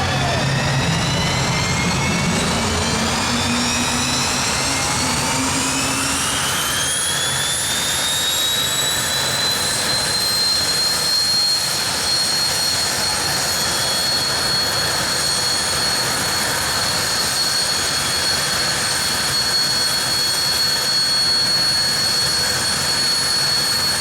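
A dragster's engine fired up and spooling: a high whine rises over the first several seconds, then holds steady with a rushing noise beneath it.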